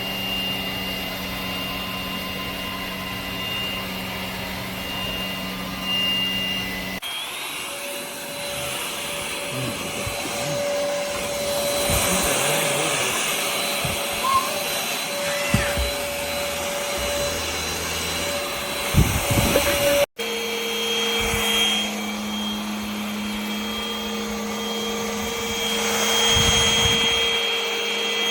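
Cordless stick vacuum running with a steady motor whine. Its pitch jumps at abrupt cuts about seven seconds in and again near twenty seconds, and a few short knocks come in between.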